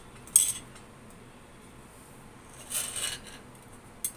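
Stainless-steel puttu tube and its push stick clicking and scraping against a steel plate as the steamed puttu is pressed out. A sharp metal click about half a second in is the loudest sound, followed by a longer scrape around three seconds in and a short click near the end.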